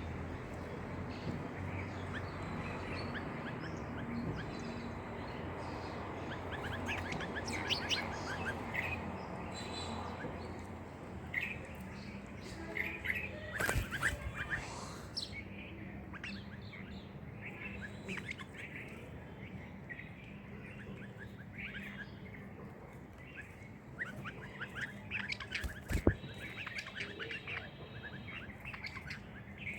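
Small birds chirping and twittering in many short, high calls over a steady background noise, with two sharp knocks, one about halfway through and a louder one near the end.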